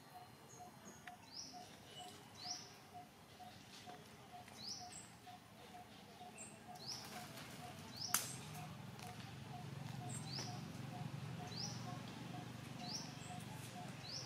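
Birds calling outdoors: a high, quick rising chirp repeated about once a second over a soft note that pulses a few times a second, with a single sharp click about eight seconds in.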